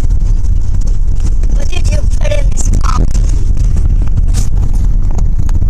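Steady low rumble of a car's road and engine noise heard inside the cabin, with a few brief, faint bits of speech about two to three seconds in.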